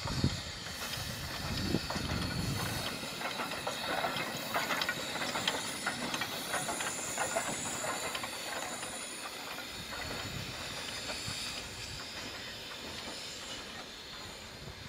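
Soviet class L steam locomotive passing, steam hissing steadily, with a low rumble in the first couple of seconds and then many sharp clicks and clanks from the wheels and running gear. The sound eases off toward the end as the engine and its coach move away.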